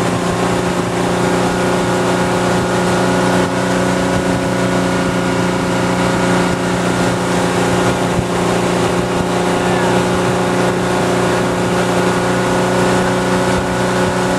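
Towing motorboat's engine running at a steady pitch and speed, over the rush of water and wind.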